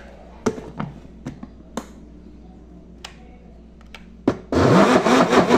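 A few light clicks and knocks of the plastic blender jar being handled, then about four and a half seconds in the blender motor switches on and runs loud, churning a thick tapioca-starch and egg batter that is too heavy for its weak motor.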